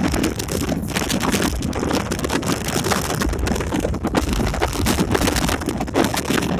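Sea wind buffeting the microphone on a cruise ship's open balcony: an uneven, gusting rush of noise.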